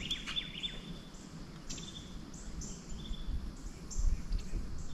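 Birds chirping and trilling over a low rumble, with a few faint knocks.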